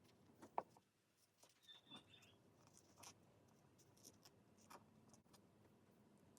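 Faint handling of paper card: light scratching and small taps, with one sharper tap about half a second in.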